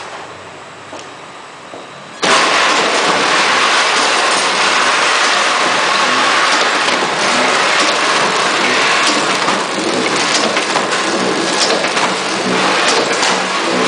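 Pillow-type flow-wrap packaging machine running while it wraps adhesive tape rolls: a loud, steady mechanical rush with scattered light clicks. It comes in abruptly about two seconds in, after a quieter stretch.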